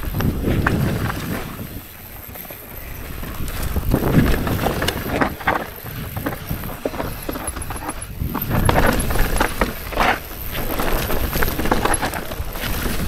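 Mountain bike descending a dry, rocky dirt trail: the tyres rumble over dirt and rock, with repeated rattles and knocks from the bike over the bumps. The noise swells and eases several times as the rider hits rougher sections.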